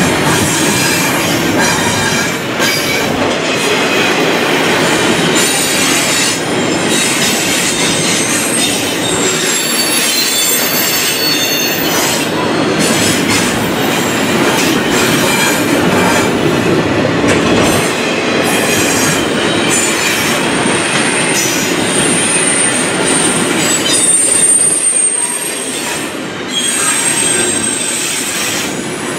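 Double-stack intermodal well cars rolling past on steel rails: continuous wheel rumble and clatter. A thin, high wheel squeal is held through the later part.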